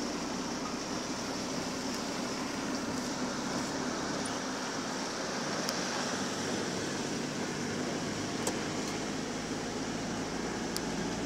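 Steady road noise inside a moving car's cabin, tyres running on a wet road, with a few faint ticks.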